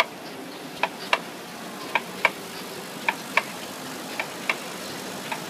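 Rotary semi-automatic mascara filling and capping machine running: sharp clicks in pairs, the two about a third of a second apart, repeating roughly once a second over a steady running noise.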